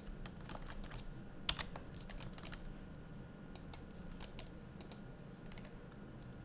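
Computer keyboard keys tapped in irregular single clicks, with a quick double tap about one and a half seconds in, over a faint low hum.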